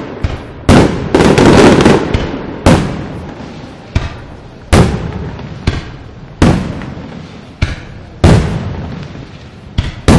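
Aerial firework shells bursting overhead: about a dozen sharp bangs, roughly one a second, each trailing off in a long echo.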